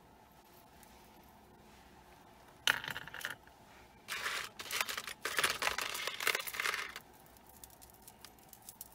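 Metal jewelry being handled and set down: a sharp clink about three seconds in, then a run of chains and pieces jingling and clattering for about three seconds.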